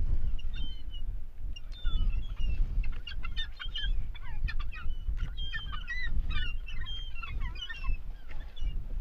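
A flock of gulls calling, many short calls overlapping, busiest from about three seconds in until near the end, over a low rumble.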